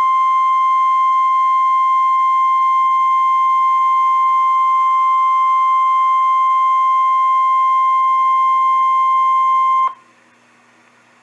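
NOAA Weather Radio 1050 Hz warning alarm tone: one steady high beep held for about ten seconds, then cutting off sharply and leaving faint receiver hiss. The tone signals that an urgent warning, a severe thunderstorm warning, is about to be read out.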